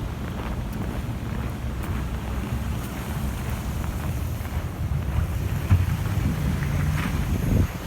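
Wind buffeting the microphone over a low rumble of street traffic, with a passing vehicle's engine from about five seconds in.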